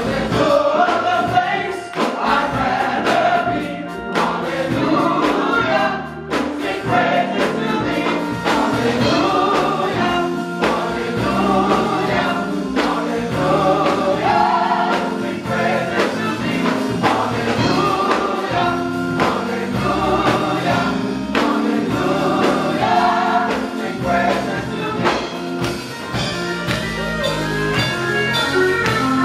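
Gospel choir singing a praise song in full voice.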